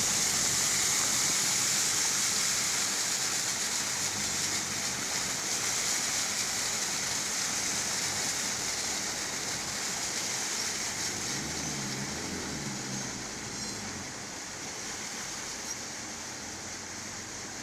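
Steady rushing of fast-flowing brown floodwater pouring across a road, slowly fading.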